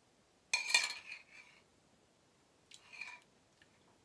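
Metal spoon scraping and clinking against a glass measuring cup full of thick sauce: a loud clattery burst about half a second in, then a shorter one near the end.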